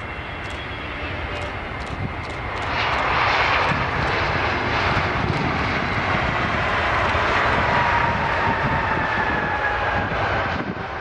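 Airbus A320neo jet engines on a landing rollout on a wet runway. The sound grows louder about three seconds in and stays loud, and an engine whine falls in pitch near the end.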